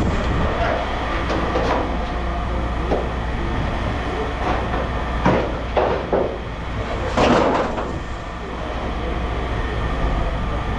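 Steady low machinery rumble with scattered clanks and rattles of scrap metal being handled, the loudest cluster a little past the middle.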